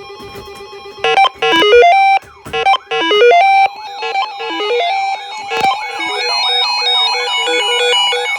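Electronic alert tones: a quick, loud melody of stepped beeps, then a fast repeating warble that rises and falls like a siren.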